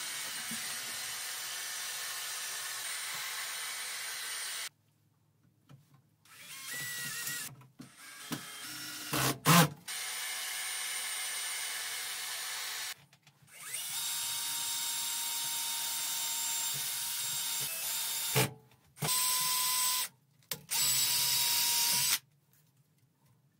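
Hot-air gun blowing steadily as it heats an acrylic strip for bending, switched off and on again several times. There is a sharp knock about nine and a half seconds in.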